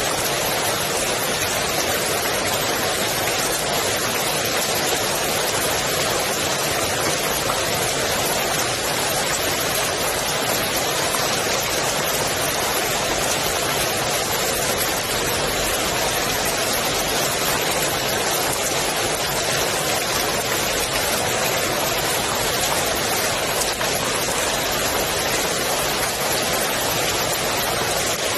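Steady rain falling on the water of a swimming pool: a continuous, even hiss of drops that does not change.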